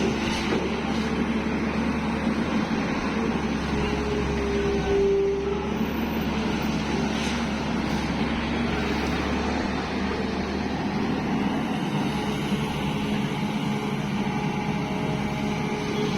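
Tata Hitachi EX 215 excavator's diesel engine running steadily under working load, with a tone that swells briefly about four to five seconds in.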